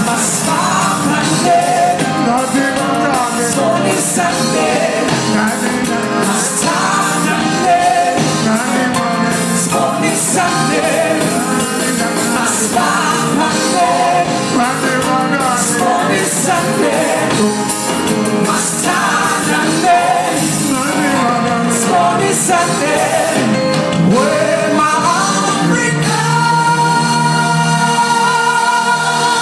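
Live band music with two singers singing into microphones over an amplified band. Near the end the singing stops and steady held notes carry on.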